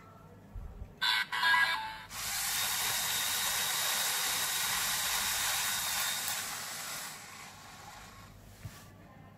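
A few short electronic beeps from the LEGO EV3 brick. Then the slot machine's three reels spin, driven by the EV3 large motor and its LEGO gears, with a steady whirring hiss for about five seconds that fades out as the reels slow and stop. A small click comes near the end.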